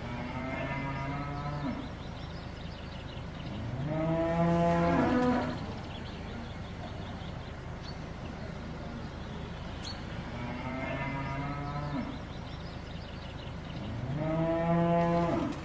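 Cow mooing: four drawn-out moos of a second or two each, the second and fourth louder, over a steady low background hiss.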